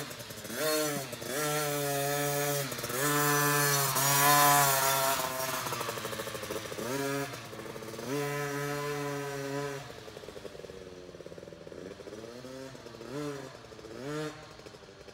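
KTM 50 SX single-cylinder two-stroke mini dirt bike engine revving up and down in repeated bursts of throttle, its pitch rising and falling. It gets fainter about two-thirds of the way through as the bike moves off.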